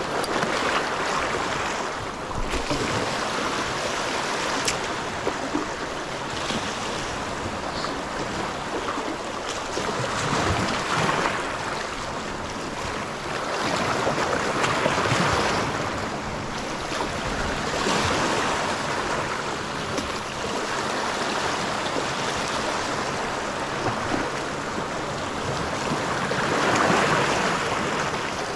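Sea surf surging and washing against the shore, the noise swelling and falling back every few seconds as waves come in on a rising, stormy sea.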